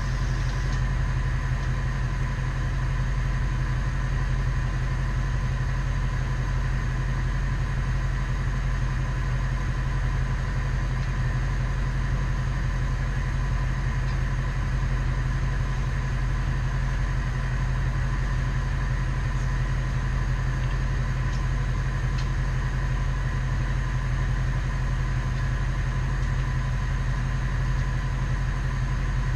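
1996 bucket truck's engine idling steadily, its level and pitch unchanging throughout.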